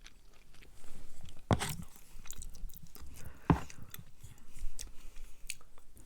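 A person chewing a mouthful of food close to the microphone, with wet mouth clicks and two sharper crunching bites about a second and a half and three and a half seconds in.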